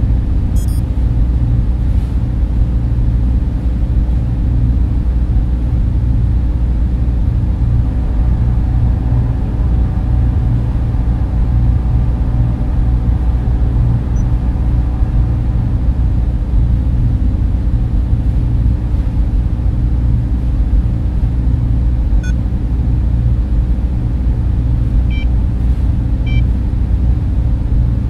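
Deep, steady drone of server machines and ventilation fans, with a few brief electronic beeps, mostly near the end.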